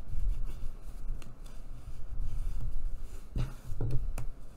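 Plastic bone folder rubbing and pressing over kraft cardboard on a cutting mat, with handling noise on the tabletop. A few light clicks near the end, as tools are picked up and set down.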